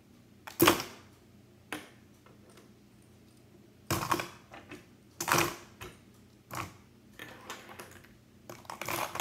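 Small plastic toy monster trucks and translucent plastic building tiles clicking and clacking together as the trucks are set into a box made of the tiles on a tabletop. The knocks are separate and irregular, a few seconds apart, with the loudest near the start and about halfway through.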